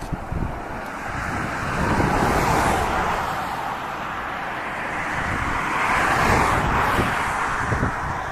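Road traffic: two vehicles passing one after the other, each rising and falling away, with wind buffeting the microphone.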